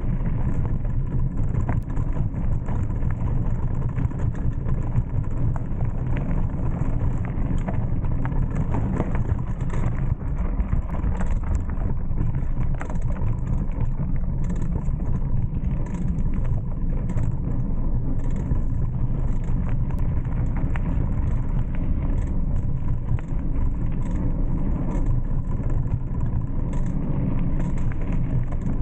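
Mountain bike riding a dirt singletrack: a steady low rumble of wind and tyre noise on the camera's microphone, with small clicks and rattles from the bike.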